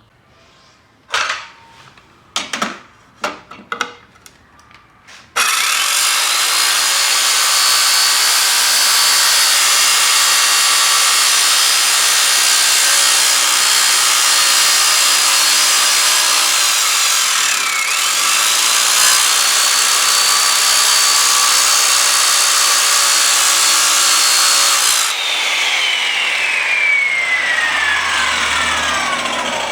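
Electric saw with a metal-cutting blade cutting a piece of metal angle: a few knocks as the work is set, then the saw starts about five seconds in and cuts with a loud high whine that dips once under load. When the cut ends the blade winds down with a steadily falling whine.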